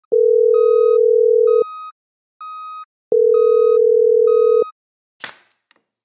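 Telephone ringing tone heard on the line as a call is placed: a steady tone in two pulses of about a second and a half each, with shorter, higher beeps about once a second. A brief crackle follows about five seconds in.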